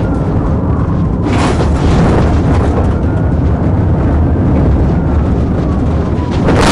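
Police cruiser driving fast, heard from inside: a loud, steady rumble of engine and road noise, with a faint siren gliding up and down. About a second in, a hiss of gravel under the tyres joins as the car runs onto a gravel road.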